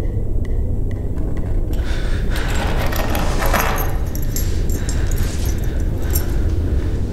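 A bunch of keys jangling and clinking as they are picked up and handled, from about two seconds in until near the end. A loud, steady low rumble runs underneath.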